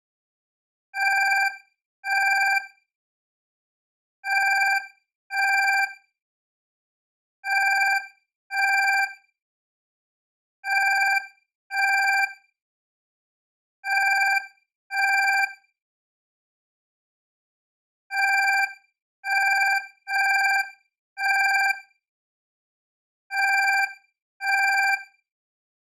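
Alarm clock beeping, a steady pitched tone in half-second beeps. The beeps come mostly in pairs about three seconds apart, with a quicker run of four about two-thirds of the way through and another pair near the end.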